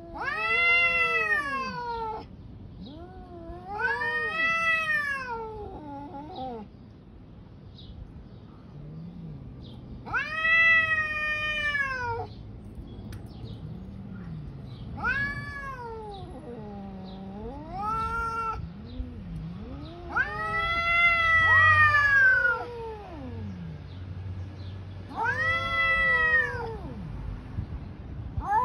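Domestic cats yowling at each other in a face-off before a fight: about seven long, wavering caterwauls that rise and fall in pitch, a few seconds apart, with lower calls in between.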